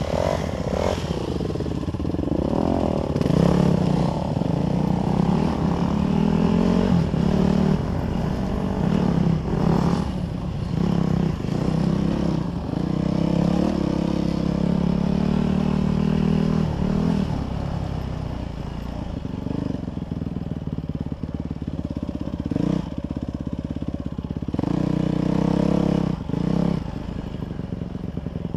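Dirt bike engine revving up and falling back again and again while riding over rough dirt trail, the pitch climbing and then dropping as it shifts and eases off.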